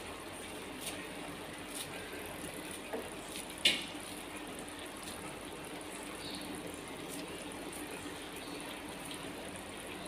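Kitchen scissors snipping fresh coriander into a pan: a few short, sharp snips about a second apart in the first four seconds, the loudest about three and a half seconds in, over a low steady background.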